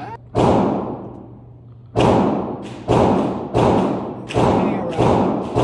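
Gunshots: one shot, then after a pause of more than a second a run of five more at about one every three-quarters of a second, each with a ringing, decaying tail.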